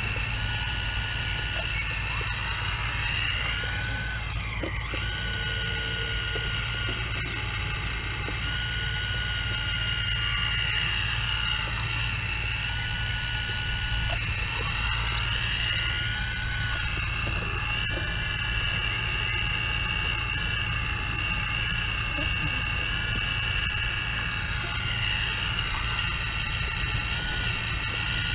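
Caterpillar 235 hydraulic excavator at work: the diesel engine runs steadily under a high whine that shifts down and back up in pitch several times.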